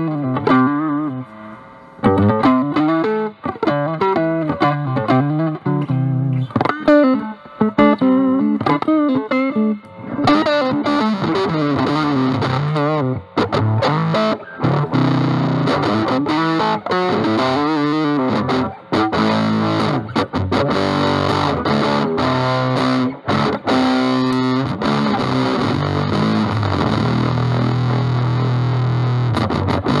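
Electric guitar played through a Dunlop JDF2 Fuzz Face with NTE158 germanium transistors into a Vox Pathfinder 15R's clean channel, playing single-note lead lines. The fuzz is cleaned up toward a lighter crunch, and the tone turns brighter and denser about ten seconds in.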